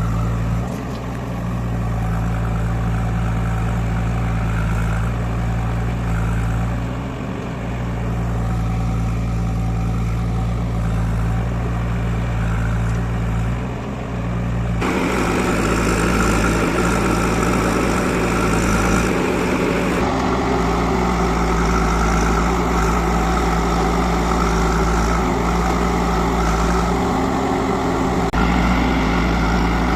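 Diesel engines of a backhoe loader and tractors running steadily, growing louder and rougher from about halfway through.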